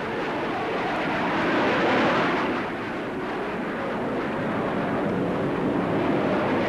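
Jet noise of an Avro Canada CF-100 fighter's twin Orenda turbojets flying past during a display. It swells to a peak about two seconds in, eases, then builds again.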